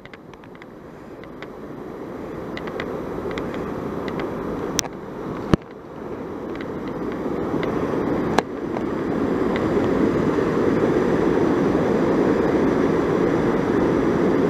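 Water pouring over a small dam spillway into an iced-over creek: a steady rush that grows louder throughout, with a few sharp clicks near the middle.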